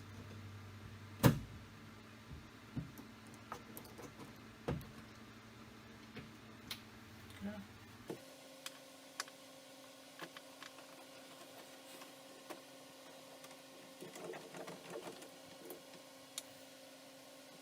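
Scattered clicks and light knocks of a door handle and its nuts being fitted by hand to a Jeep door, with one sharp knock about a second in. A faint low hum drops out about eight seconds in.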